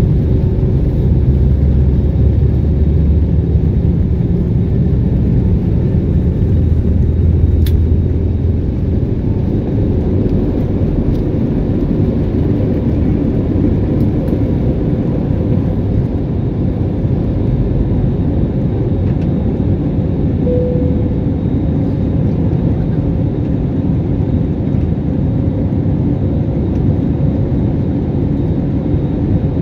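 Jet airliner's turbofan engines at takeoff thrust, heard from inside the cabin over the wing: a loud, steady roar as the plane rolls down the runway and lifts off. A heavier low rumble runs through the first several seconds, then eases.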